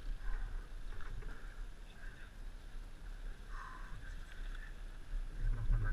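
Quiet outdoor background with a steady low rumble and a few faint, indistinct sounds; a man's voice starts near the end.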